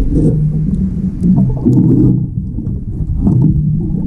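Underwater sound of a scuba diver breathing out through the regulator: a low bubbling rumble in surges, easing briefly about two seconds in, then building again.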